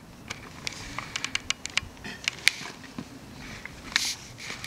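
Footsteps on a rocky mountain path: irregular sharp clicks and scuffs of shoes on rock and loose stones, with a brief hiss near the end.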